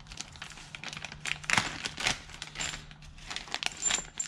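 Small metal hardware being handled and fitted: a run of light clicks and rustling as spacers and bolts are lined up against a supercharger intake elbow, loudest about one and a half to two seconds in.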